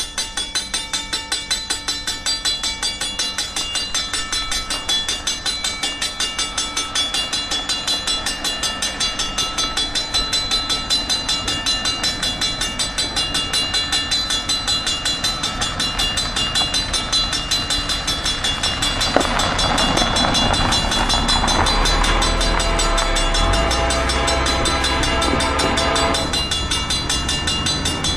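Level-crossing warning bell ringing fast and steadily, starting suddenly as the crossing activates for an approaching train. About two-thirds through, the oncoming diesel locomotive's air horn sounds for several seconds, and the low rumble of the locomotive grows near the end.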